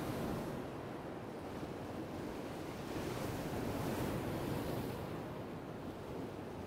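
Sea waves washing against shoreline rocks, the surge swelling about three to four seconds in and easing off near the end.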